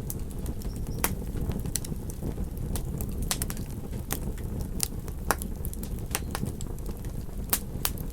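Campfire crackling: burning wood gives irregular sharp pops and snaps, several louder than the rest, over a steady low rumble.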